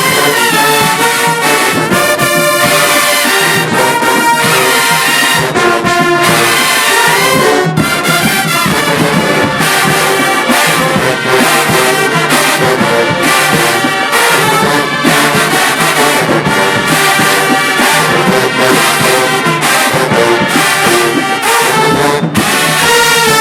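College marching band playing at full volume: trombones and trumpets carrying the tune over repeated drum strokes, without a break.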